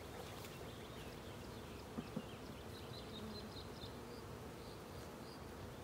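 Honey bees humming around an open hive, with two light knocks about two seconds in.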